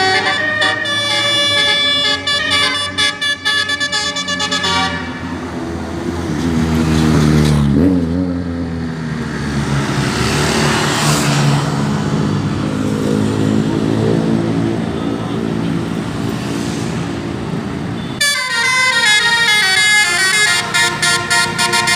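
A bus's telolet basuri musical air horn, a set of roof-mounted trumpets, plays a fast tooting melody that stops about five seconds in. A lower engine-like drone with a swoop in pitch fills the middle. The horn melody starts again near the end.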